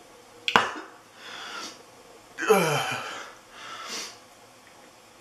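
A man heaving with nausea from the Sharpie marker fumes. There is a sharp breath about half a second in, then heavy breaths, and a loud groan falling in pitch about two and a half seconds in.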